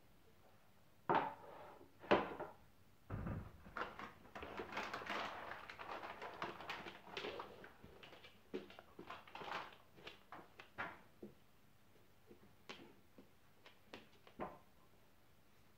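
A metal stand and a wooden Dog Twister puzzle being handled and set down: two sharp knocks, then a dull thump, then several seconds of clattering and rustling, then scattered light clicks and taps.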